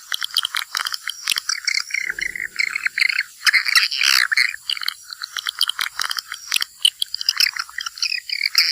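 Swiftlets twittering: many quick, overlapping high chirps from a crowd of birds flying in and out of a swiftlet house.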